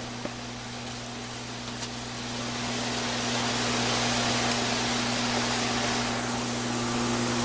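Steady background hiss with a low electrical hum. The hiss gets louder about two to three seconds in, then holds.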